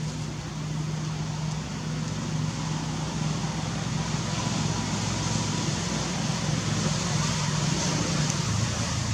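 A motor vehicle engine running steadily, a low hum under a constant hiss that grows slightly louder.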